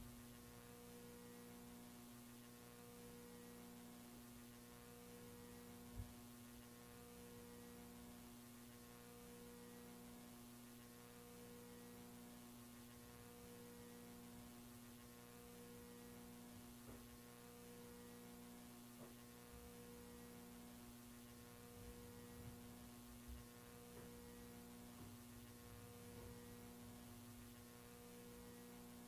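Near silence with a faint steady electrical hum. One lower tone in it pulses on and off about every two seconds, and there is a faint tick about six seconds in.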